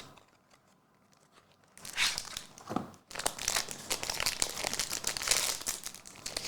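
Foil trading card pack wrapper being torn open and crinkled by hand. Irregular crackling begins a couple of seconds in, pauses briefly, then keeps going.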